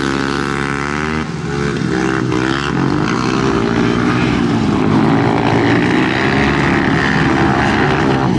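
Several speedway solo motorcycles running, their single-cylinder engines rising and falling in pitch as the riders open and close the throttle, overlapping one another.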